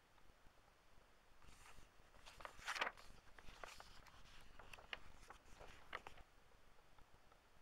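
Faint rustling and flicking of an old book's paper pages being turned by hand: a run of soft crackles and flicks from about a second and a half in to about six seconds, the loudest just under three seconds in.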